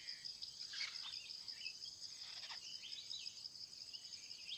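Insects chirring steadily at a high pitch, with a few short bird chirps now and then.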